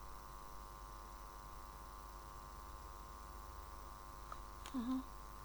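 Steady electrical hum, like mains hum from the recording setup, with a brief murmured vocal sound near the end.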